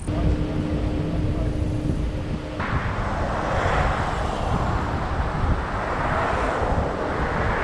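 Vehicle road noise: a steady low rumble. About two and a half seconds in, a loud rushing hiss suddenly joins it.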